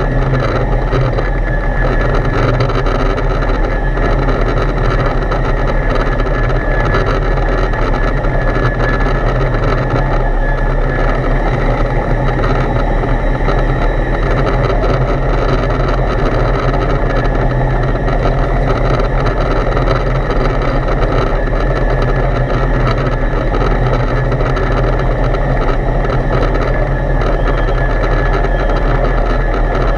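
Foxbat A22LS light aircraft's Rotax 912 engine and propeller running steadily in cruise, heard from inside the cockpit: an even, unchanging drone with a strong low hum and a faint high whine.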